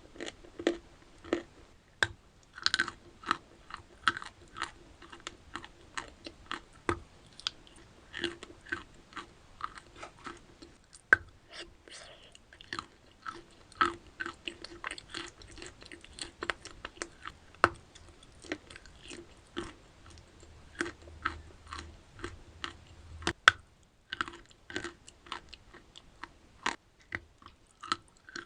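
Crunchy chalk being bitten and chewed: a steady run of crisp crunches, several a second, with a short pause about three-quarters of the way through.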